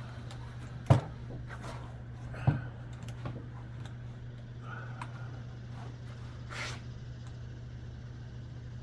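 Handling noises: two sharp knocks about a second and a half apart, followed by light scattered clicks and rustles, over a steady low hum.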